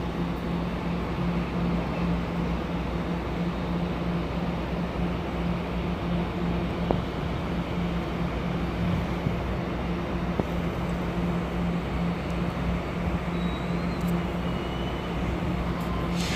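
Train locomotive at the platform running with a steady, even hum, with a few faint clicks.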